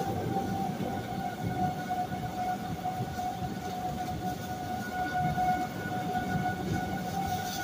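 Outdoor tornado warning siren sounding one steady high tone that swells and fades, over heavy rain falling.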